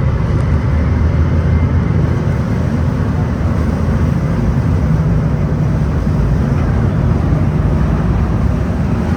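Steady low drone of the tour boat under way: its engines humming, with a rushing haze over the top from wind and water.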